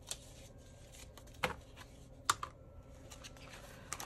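Clear plastic envelope pockets and paper bills in a ring-bound cash binder being handled: scattered light clicks and rustles, with two sharper clicks a little under a second apart near the middle.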